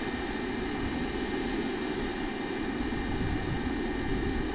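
Handheld electric blower running steadily with a motor whine, forcing air into the coal fire under a homemade steam boiler to raise its pressure.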